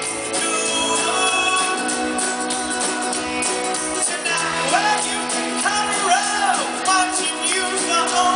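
Live pop-rock band playing: a male lead singer sings over ukulele, guitar and drums.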